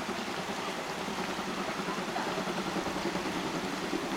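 Steam locomotives 70 083 and 41 018 working a train as it approaches from a distance: a steady rumble and hiss of exhaust, no single beats standing out.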